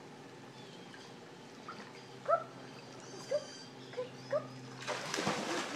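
A dog whimpering in short, high, rising cries, four or five times, then a splash of water near the end as it goes into the pool.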